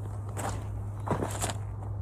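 About three footsteps, the loudest in the middle, over a steady low hum.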